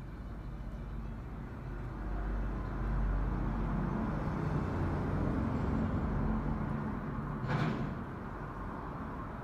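Low rumble of a road vehicle passing by, swelling over a few seconds and easing off, with one short sharp noise about seven and a half seconds in.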